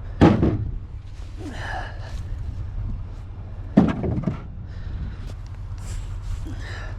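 Split firewood logs thudding as they are tossed onto a load: two heavy thuds, the first just after the start and the second nearly four seconds later.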